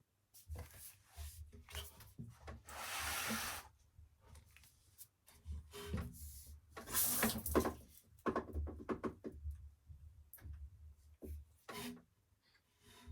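Zanussi FL984CN front-loading washing machine washing: the drum turns and laundry and water swish in irregular surges, the strongest about three and seven seconds in, over repeated low thumps.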